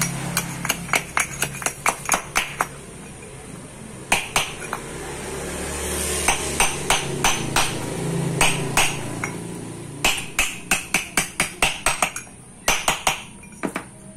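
Hammer blows on a steel drift, driving a new ball bearing into the hub of a Honda Vario 125's CVT pulley. The sharp metallic strikes come in quick runs of several a second, broken by short pauses.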